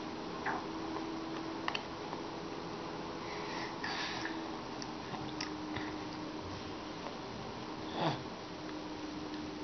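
A baby sniffing and making small mouth sounds while sucking on a lemon half, in a few short scattered bits, the loudest about eight seconds in. A steady faint hum runs underneath.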